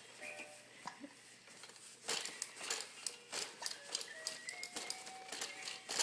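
Quick clicking and rattling from a baby's plastic parrot toy being worked by hand, busiest from about two seconds in, with a few faint held electronic-sounding tones that step in pitch.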